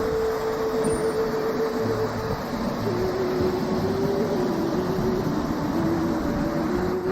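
Steady rushing roar of a large waterfall, with a single tone that slowly steps up and down in pitch over it.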